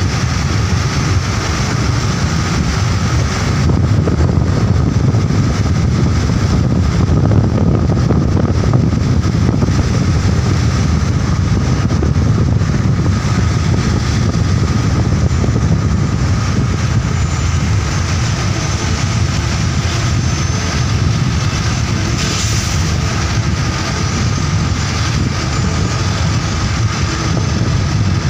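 A vehicle on the move: its engine runs steadily under heavy wind rumble on the microphone.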